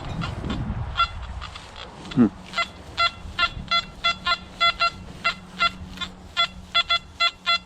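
Nokta Makro Anfibio metal detector giving a run of short, pitched target beeps in an uneven rhythm as the coil is swept back and forth over a target.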